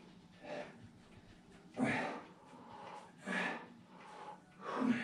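A person breathing hard from exertion while holding a prone back-strengthening exercise: a loud, rasping breath about every second and a half, four in all.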